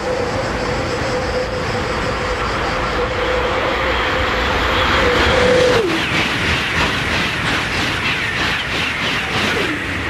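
High-speed electric train passing at speed: a steady whine that drops sharply in pitch as the front goes by about six seconds in, where it is loudest, then a quick rhythmic clatter of wheels over the rails as the cars pass.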